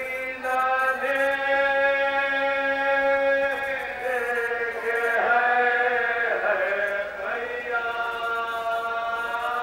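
A man chanting a marsiya, the Urdu elegy for Imam Husain recited at Muharram, in long held notes that waver and slide from one to the next.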